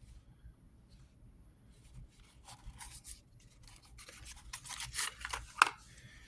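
Hands handling a small boxed pocketknife. Scattered rubbing and scraping grows busier through the second half, with one sharp click about five and a half seconds in.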